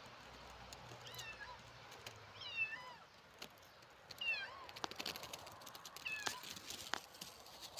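Four short, high-pitched animal calls, each dropping in pitch, with scattered light clicks between them.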